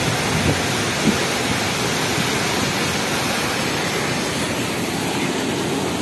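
Steady rush of a waterfall: water pouring down several cascades onto rocks.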